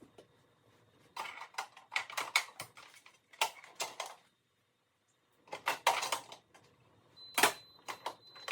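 Hard household items such as dishes and containers clinking and clattering as they are handled, in four short spells of quick knocks with quiet gaps between.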